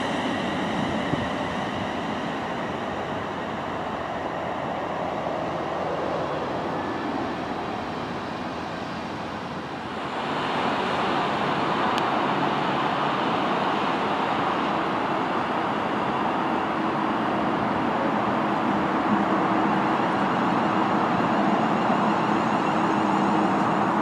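Siemens Desiro Class 350 electric multiple units on the move: the first passes through with a motor whine that fades over the first few seconds. About ten seconds in, the sound switches to a second Class 350 drawing into the platform, a steady rush of wheels and train noise, with a low hum joining later.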